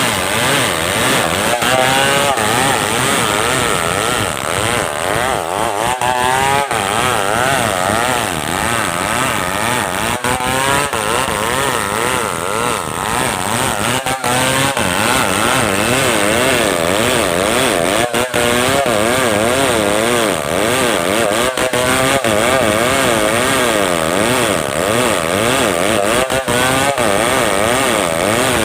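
Stihl 070 two-stroke chainsaw running at high revs while cutting wood, loud and continuous, its engine pitch wavering up and down over and over.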